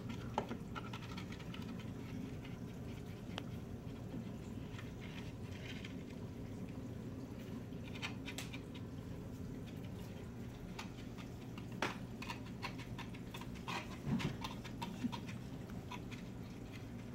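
Steady low hum of running aquarium equipment, with scattered light clicks and scrapes from a Mag-Float magnetic algae cleaner with a razor blade being worked along the tank glass; the louder knocks come about 12 and 14 seconds in.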